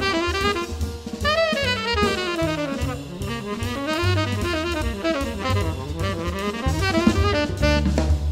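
Jazz trio recording: a saxophone solos in fast runs of notes that sweep up and down, over bass and a drum kit.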